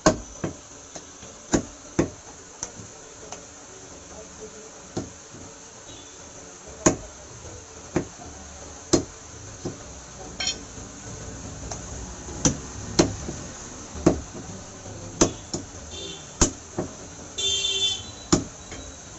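Heavy meat cleaver chopping meat and bone on a round wooden chopping block: sharp single chops at irregular intervals, roughly one a second. Near the end comes a brief high-pitched sound with several tones.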